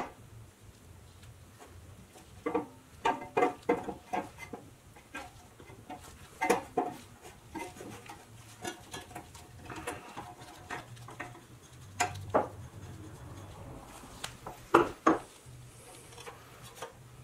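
Light metallic clinks and knocks of small pressed-steel toy parts and hand tools being handled on a workbench: irregular taps, a few ringing briefly, in small clusters with gaps between. A low steady hum lies underneath.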